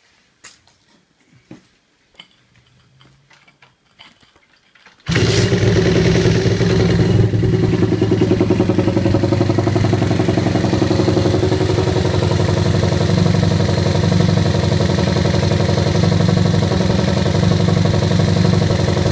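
A few faint clicks and knocks, then about five seconds in the 1976 Honda XR75 race bike's small single-cylinder four-stroke engine fires and runs steadily and loudly.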